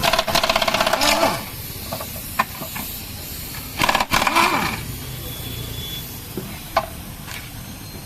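Air-powered wrench running in two bursts of fast, even strokes, about a second each and a few seconds apart, undoing the nuts that hold a Maruti Swift Dzire's steering rack. A few sharp metal clicks fall between the bursts.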